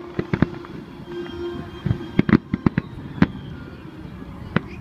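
Aerial fireworks bursting in a series of sharp bangs and crackles. A few come just after the start, a quick cluster about two seconds in, a single bang a little after three seconds, and another near the end.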